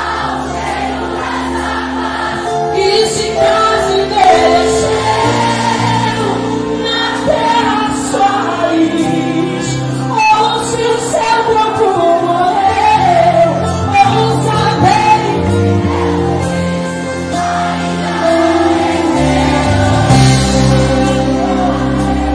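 Live Christian worship music: a woman singing into a microphone, amplified over loudspeakers, with band accompaniment of sustained bass and chords.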